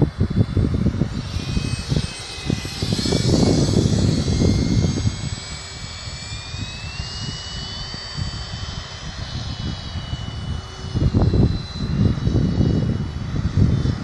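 Electric ducted fan of a Freewing Mini Avanti 6S 80mm EDF model jet whining in flight, its pitch sliding up and then stepping down as it passes. Wind buffets the microphone in gusts.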